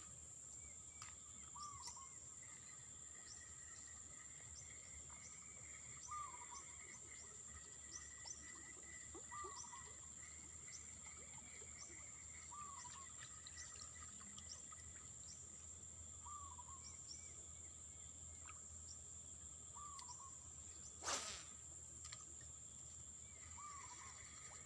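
Quiet riverside ambience: a steady high-pitched insect drone, with a bird giving a short call every few seconds. One sharp click or knock stands out near the end.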